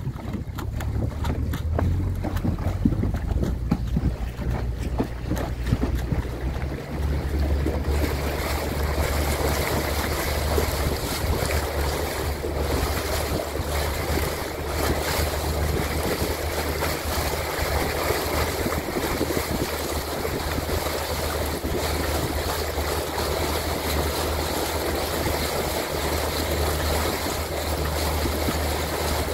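Wind buffeting the microphone over water rushing past a moving boat, with a steady low rumble underneath. About eight seconds in, a brighter hiss joins and stays.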